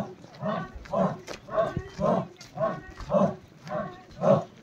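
A crowd of marchers chanting in unison, short rhythmic shouts repeated about twice a second like a marching cry.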